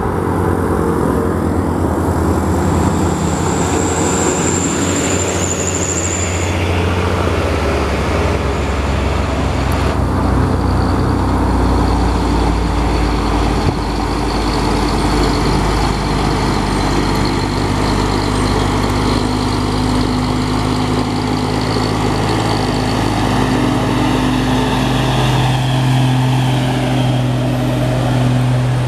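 Heavy diesel trucks climbing a steep grade, their engines running under load in low gear as they pass one after another. A high whistle sounds for a few seconds near the start.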